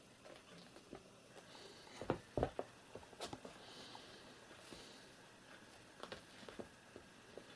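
Kittens play-fighting on a woven floor rug: scattered soft patter and scuffs of paws and bodies, with a couple of sharper light knocks about two seconds in.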